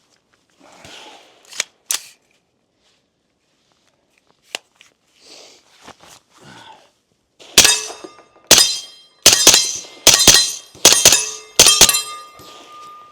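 A suppressed 9mm pistol-calibre carbine (CMMG Banshee with a PTR Vent suppressor) fires about ten shots in roughly four and a half seconds, some in quick pairs. The hits ring off steel targets, and a ringing tone hangs on after the last shots. A few small clicks of gun handling come before the shooting.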